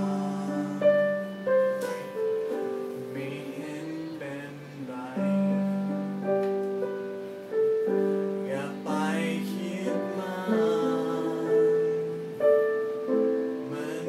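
A man singing a Thai pop song over piano accompaniment. The piano chords are struck and left to ring and fade under the voice.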